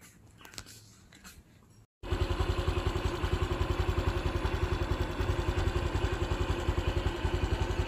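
A small motorcycle engine running steadily at low speed, heard close, with an even low throbbing pulse. It starts abruptly about two seconds in, after a faint, near-quiet stretch.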